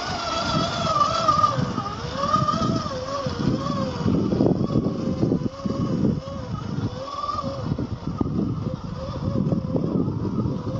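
Electric 50-turn motor and geartrain of a 1/10-scale RC crawler whining, its pitch wavering up and down as the throttle is worked over the rocks, with the tyres crunching and knocking over loose stones.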